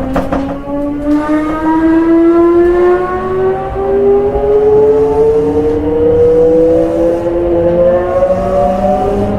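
Mitsubishi GTO-thyristor VVVF inverter of an Odakyu 1700 series electric train whining as the train accelerates. Several tones rise steadily in pitch, with new tones coming in about three and eight seconds in, over the rumble of the running gear.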